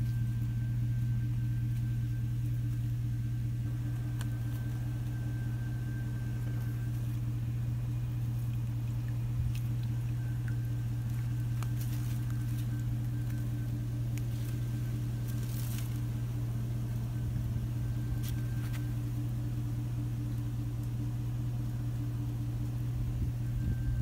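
A steady, loud, low mechanical hum that holds one pitch throughout, with a few faint clicks over it.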